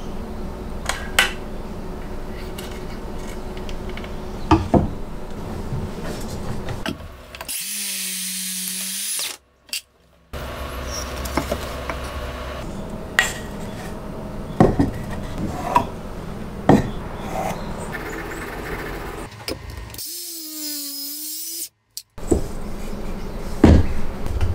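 Wooden workpieces being handled and fitted together, with scattered knocks and clicks of wood and tool parts. Twice, a loud high-pitched power-tool whir lasts about two seconds and cuts off sharply.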